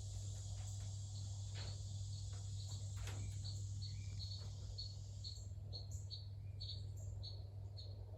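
Repeated short high-pitched chirps from a small animal, about two a second, growing louder after the middle, over a steady low hum.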